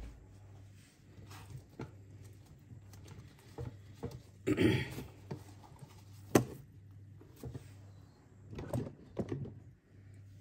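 Hands handling and unwrapping a damp cloth bundle in a wire colander in a steel sink: scattered rustles, sharp clicks and knocks, the loudest a rustle about halfway through and a click soon after, over a faint low steady hum.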